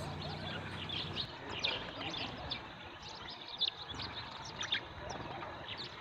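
A flock of house sparrows chirping: many short, scattered chirps, overlapping at times.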